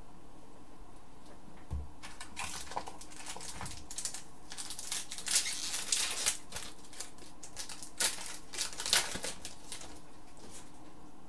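Crinkling and tearing of a foil hockey card pack wrapper, with cards being handled, in a run of sharp crackles and clicks that starts about two seconds in and is loudest around the middle and near the end.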